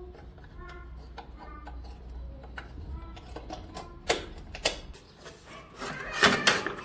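Bolts being turned out of a motorcycle's metal skid plate with a hand tool, making light rapid ticking. A couple of sharp metallic clicks come a little past halfway, then loud metal clatter near the end as the plate is worked off.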